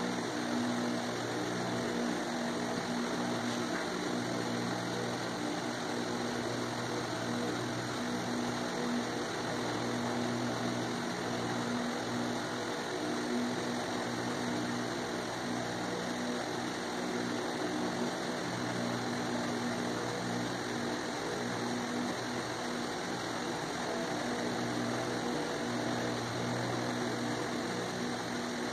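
A steady machine-like drone with a constant low hum, like a motor or fan running, unchanged throughout.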